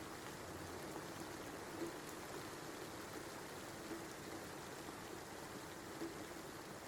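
Steady rain falling, an even patter with a soft tap about every two seconds.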